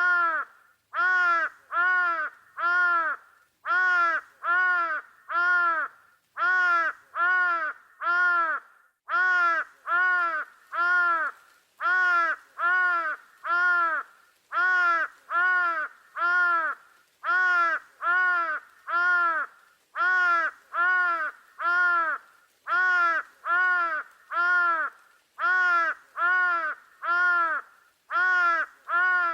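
A crow cawing over and over: runs of loud, harsh caws broken by short pauses, in a very even repeating pattern.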